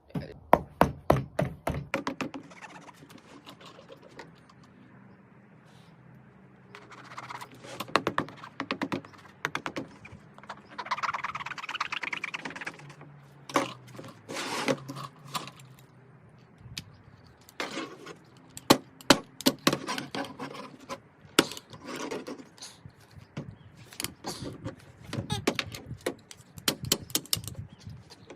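A new Air Jordan sneaker being worked apart by hand: many sharp clicks and knocks with scraping, in uneven runs, with a stretch of scratchy rasping near the middle.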